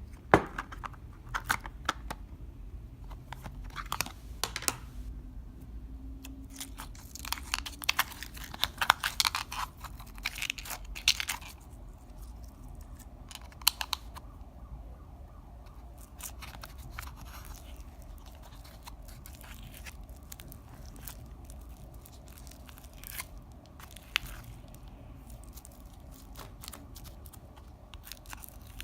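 Close-up crackling, clicking and tearing sounds of clear slime and makeup being handled and mixed, dense for the first dozen seconds and then sparser.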